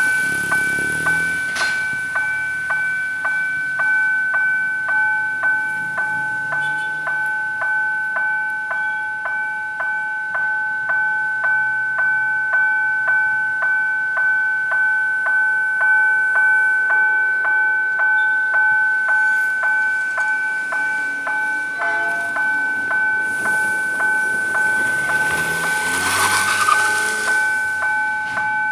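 Level-crossing warning bell ringing steadily, about two strikes a second, while the crossing signal is active for an approaching train. A GE C30-7 diesel locomotive's engine rumbles faintly underneath, and a swell of hiss rises and fades near the end.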